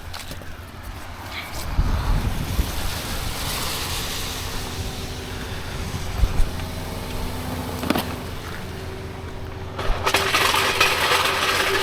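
Road traffic: a car passing by, its rumble and tyre hiss rising and fading, and another vehicle's hiss coming in suddenly near the end.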